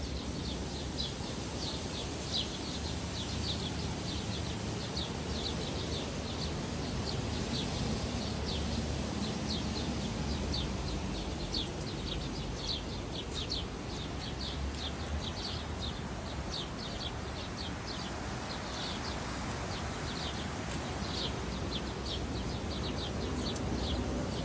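Small birds chirping: short high notes repeated a few times a second, over a steady background hiss.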